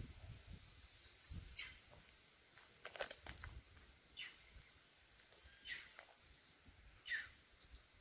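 Quiet outdoor ambience with about six short, sharp high-pitched sounds at irregular intervals.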